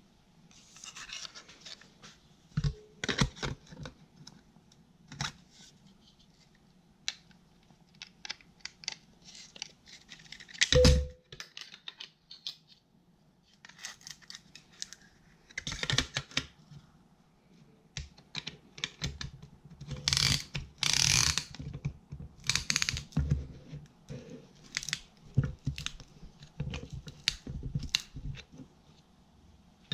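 Irregular metal handling sounds, clicks, scrapes and clinks, as a band-type piston ring compressor is fitted and tightened around a piston in the cast-iron block of a Farmall H engine. The loudest is a sharp metal knock about a third of the way through that rings briefly.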